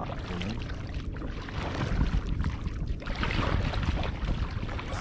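A paddle dipping and pulling through the water, with splashing and sloshing that swells about two seconds in and again just after three seconds.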